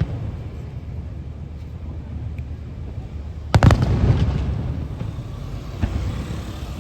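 Fireworks shells bursting overhead: a loud boom with a few sharp cracks about three and a half seconds in, its rumble rolling on and fading over a second or two, then a smaller bang near the end.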